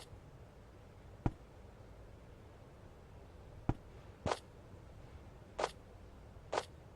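Two sharp knocks and several brief swishing sounds, spaced out over a low, steady background.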